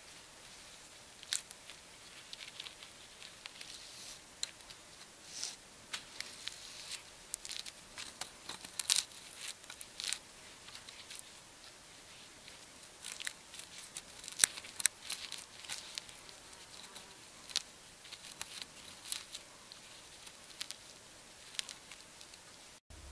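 A flat strap rustling and crinkling against rough pine bark as hands wrap and knot it, with scattered sharp crackles and clicks, the loudest about nine and fourteen seconds in.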